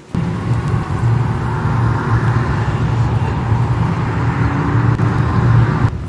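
Loud, steady outdoor background noise, a strong low rumble with a hiss above it, cutting in suddenly just as the sound begins.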